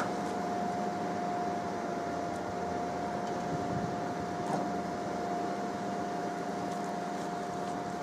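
Scania truck-mounted knuckle-boom crane running while lifting a load: a steady machine hum with a steady whine held at one pitch, which stops shortly before the end.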